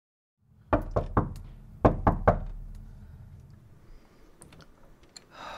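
Knocking on a wooden door: two quick groups of three knocks, about a second apart, followed near the end by a brief soft swish.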